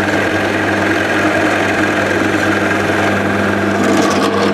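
Drill press running a Famag Bormax Forstner bit as it bores into softwood: a steady motor hum under the continuous rasp of the bit cutting. The brand-new, sharp bit is clearing its chips well.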